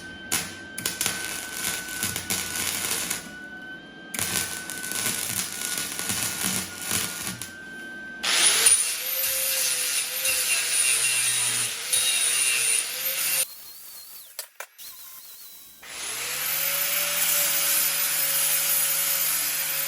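Electric power tool working on small steel motorcycle frame parts, run in spells: scraping and clicking at first, then the motor running loudly twice, spinning up about two-thirds of the way in.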